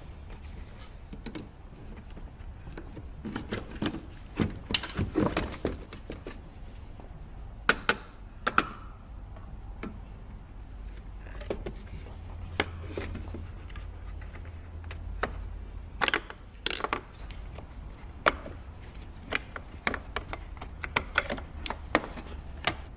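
Irregular clicks, taps and knocks from a hand wrench and the plastic tail-light housing being handled as the rear light assembly is unbolted and lifted out, over a low steady hum.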